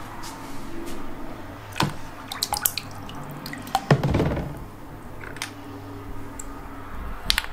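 Water dripping in a bathroom sink, with several sharp little clicks and a duller knock about four seconds in.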